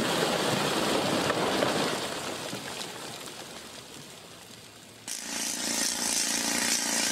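A blasted sandstone block breaking away from the quarry face and crashing down, the rubble rumbling and sliding and fading over several seconds. About five seconds in, a hose-fed pneumatic rock drill starts abruptly and runs steadily with a buzzing hiss.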